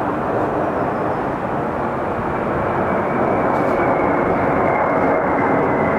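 Jet engines of a flypast formation (a large four-engined tanker and a Tu-160 bomber, each with fighter escorts) making a steady rushing roar that grows a little louder about halfway through. A faint high whine drifts slowly down in pitch.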